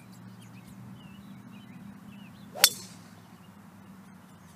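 Golf driver striking a ball off the tee: one sharp, ringing crack about two and a half seconds in.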